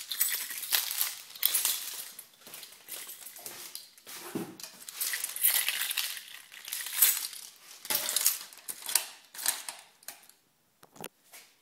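Irregular rustling and light clinking from a phone camera being handled and moved around a parked motorcycle, with no engine running. Two sharp clicks come near the end.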